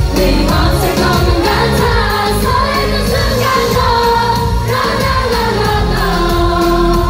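Live K-pop performance: a lead vocal sings into a microphone over a loud pop backing track with a steady beat, heard through the venue's sound system.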